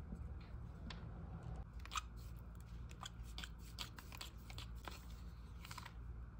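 Plastic tint brush scraping and clicking against a plastic mixing bowl while stirring hair dye cream and developer together: a quick run of short scrapes starting about two seconds in and stopping shortly before the end.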